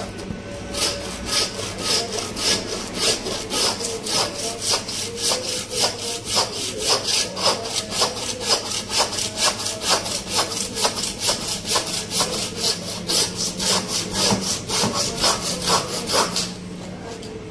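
A butcher's hand bone saw cutting through a large raw leg of meat, with steady back-and-forth rasping strokes, about three or four a second. The strokes stop about a second before the end.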